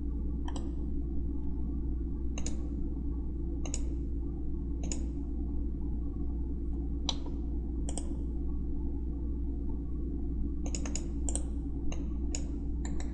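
Computer mouse clicking while a CAD program is operated: single clicks a second or two apart, then a quicker run of clicks near the end, over a steady low electrical hum.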